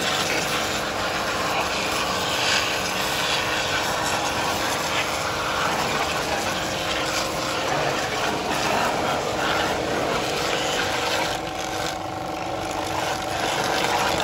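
Pressure washer running, its water jet hissing and spattering against a bare aluminium cylinder head, with the steady hum of the washer's pump motor underneath. The spray sound dips briefly about twelve seconds in, then comes back.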